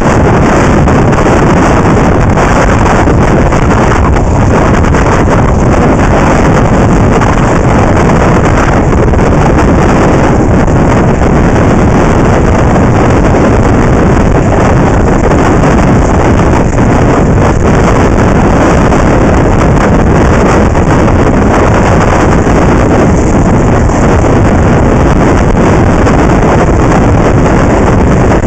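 Loud, steady wind buffeting on the microphone of a camera moving at inline-skating speed, mixed with the rolling of inline skate wheels on asphalt.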